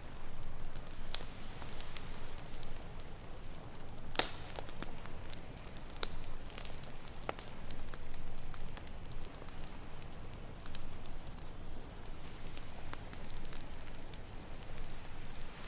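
Campfire crackling with scattered wood pops, the sharpest about four seconds in, over a steady low wash of ocean surf.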